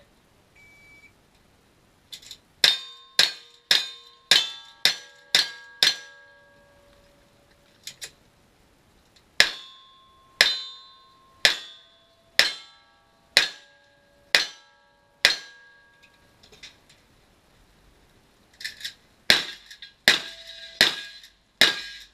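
A short electronic beep, then three strings of gunshots during a cowboy action shooting stage: about seven quick shots, a pause, about seven shots roughly a second apart, a pause, then another fast string near the end. Many shots are followed by the brief ringing of steel targets being hit.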